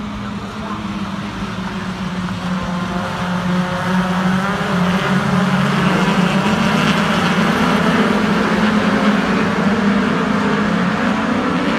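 Racing car engines running at speed on a circuit. They grow louder over the first four seconds as the cars come closer, then stay loud with a steady engine note.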